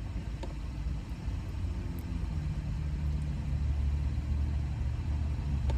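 Car engine running, a low steady hum heard from inside the cabin.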